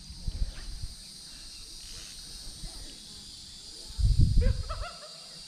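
Steady high-pitched buzz of insects, with low bumps on the microphone in the first second and a louder rumble about four seconds in, where a short voiced sound is heard.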